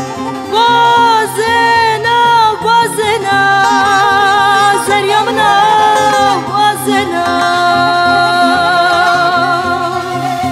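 A woman singing a Kurdish song in ornamented, wavering phrases over a steady instrumental accompaniment. The voice comes in about half a second in and ends on a long held note with vibrato.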